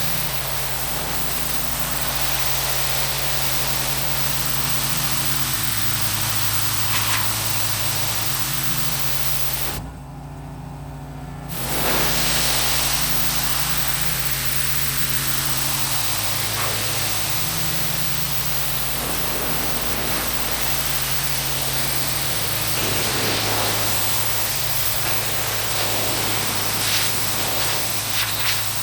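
Pressure washer spraying a car's body panels, a steady hiss over the low hum of the machine; the spray stops for a second or two about ten seconds in, then starts again.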